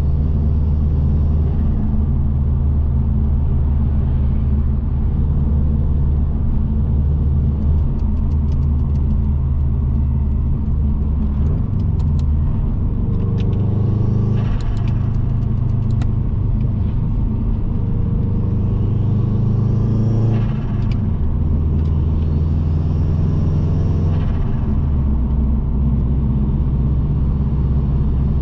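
Subaru Impreza WRX's turbocharged EJ20 flat-four running under way, a steady low drone whose pitch rises and falls a few times as the car changes speed and gears.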